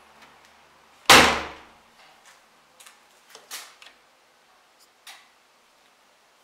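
Siemens iSensoric WM12N2K7GR washing machine's porthole door slammed shut about a second in, then a scatter of light clicks as the program selector knob is turned.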